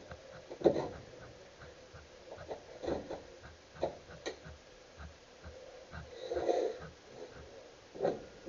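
Scattered knocks and short scrapes of hand woodworking tools worked and handled on wood at a workbench.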